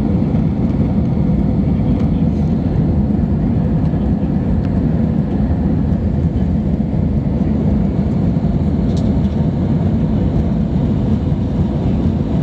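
Steady low noise of an airliner's engines and rushing air, heard from inside the passenger cabin.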